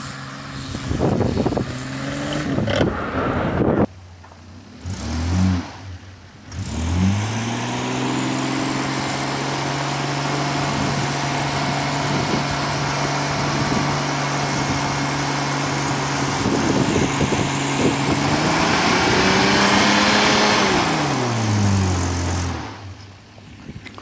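Lexus LX450's 4.5-litre 1FZ-FE inline-six revving, breaking off about four seconds in, then after two short revs held at a steady high pitch for about ten seconds as the truck pulls through soft sand with its differentials locked. Near the end the revs rise once more and then fall away.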